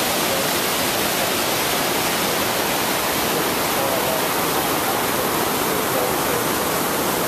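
Rushing water of a rainforest stream and its waterfalls in flood, a steady dense noise that does not change.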